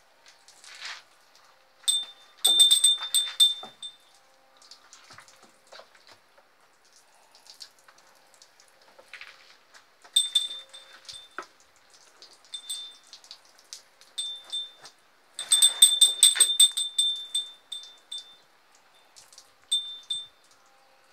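Water sprayed from a hose splashing over a cow's hide, with bursts of high, bell-like chiming; the chiming comes in two loud flurries, one a couple of seconds in and one about three-quarters of the way through.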